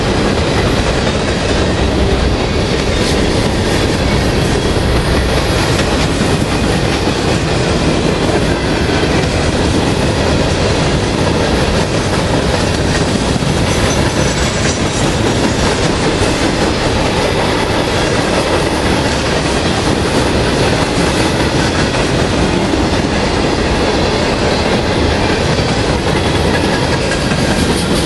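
Freight train's covered hopper cars rolling past at close range: steady, loud noise of steel wheels running over the rails.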